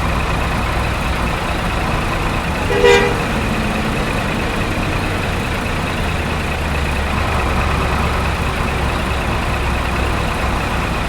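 Truck engine running steadily, with one short horn toot about three seconds in.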